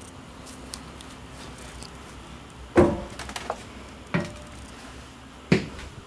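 Three heavy footsteps thudding about a second and a half apart, climbing a travel trailer's folding metal entry steps into the trailer, with a few light clicks and knocks between them.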